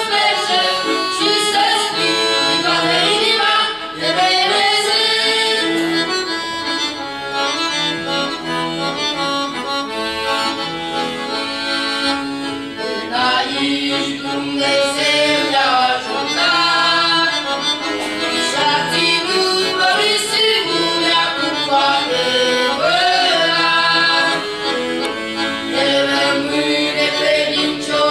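Piano accordion playing a song accompaniment while two boys sing along with it.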